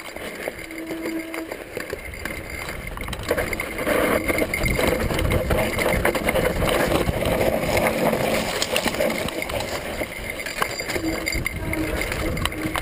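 Mountain bike descending a dry, loose dirt trail: knobby tyres rolling over dirt and stones with the bike rattling over bumps, under a rush of wind on the action camera's microphone. It gets louder about four seconds in as the bike picks up speed.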